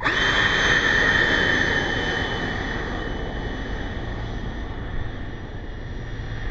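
Electric ducted-fan RC model jet spooling up to high throttle, with a quick rising whine at the start. It then holds a steady high whine over a rushing hiss that slowly grows quieter.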